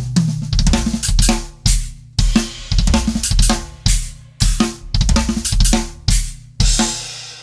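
Acoustic drum kit playing a groove, with bass drum, snare, hi-hat and cymbals in a steady rhythm. It ends on a hit with a cymbal that rings out near the end.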